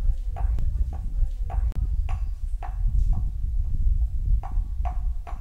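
Metal rod pounding in a small steel cup used as a mortar, about two strikes a second, each a short ringing clink, over a low rumble.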